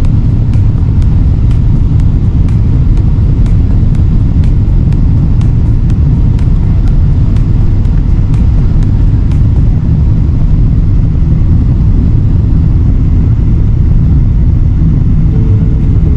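Loud, steady low rumble of a Boeing 777 cabin during the descent: engine and airflow noise heard from inside, at a window seat.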